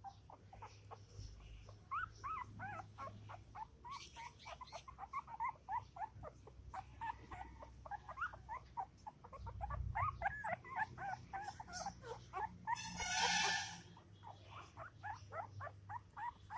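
Newborn puppy crying: a rapid run of short, high-pitched squeaking whines, several a second, with a brief louder, hissier sound about thirteen seconds in.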